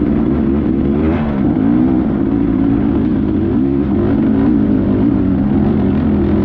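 Beta 300 two-stroke dirt bike engine revving up and down continually as the bike works up a steep, technical trail.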